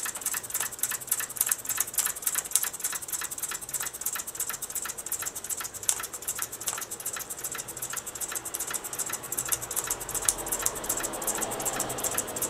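Mamod SP6 single-cylinder stationary steam engine running slowly: an even, fast ticking beat of exhaust puffs and valve-gear clatter, several beats a second.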